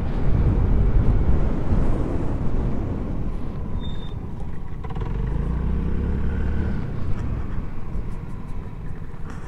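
Motor scooter's engine running as it is ridden slowly, with a steady low rumble. The engine note climbs a little past the middle, then eases off.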